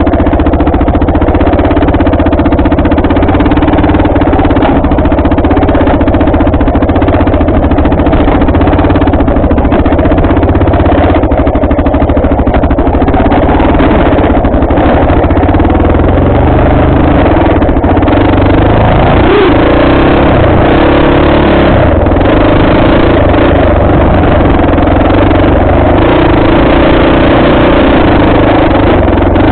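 Off-road vehicle engine running steadily under load on a dirt trail, with the revs rising and falling a little past the middle.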